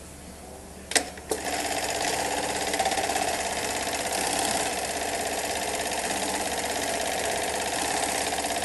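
JUKI industrial sewing machine, a clamp-frame type, sewing heavy nylon belt webbing at steady high speed, with a fast, even run of stitches. It starts with two sharp clacks about a second in as the work clamp comes down.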